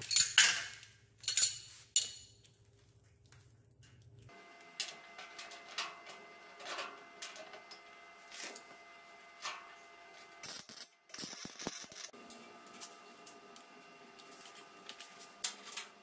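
A metal panel clanking against the metal frame of a cargo bed several times in the first two seconds, then scattered light metallic taps and clicks as the panel is positioned.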